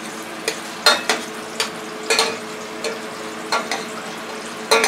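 A metal utensil clinking against the sides of a stainless-steel saucepan as ramen noodles are stirred, sharp knocks about once or twice a second. Underneath, a steady sizzle of battered fish frying in oil in a skillet.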